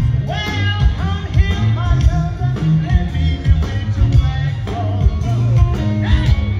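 Live blues band playing, a woman singing lead over electric guitar and band accompaniment, amplified through a festival PA.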